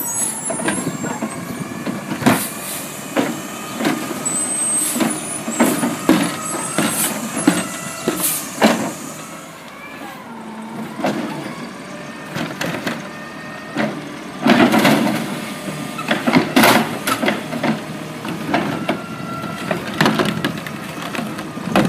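Automated side-loader garbage truck running on natural gas, working its hydraulic grabber arm: a whining hydraulic pump, clanks and knocks of the arm on the plastic carts, and hisses of air, with louder clusters of knocks about two-thirds of the way through and near the end.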